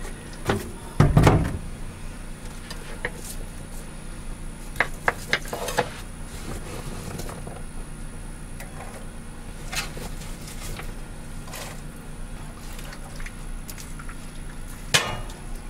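Cooking at a stovetop: a low thump about a second in, then scattered light clicks and taps as chopped celery drops into a pan of sauce and a spatula works it, over a faint steady hum.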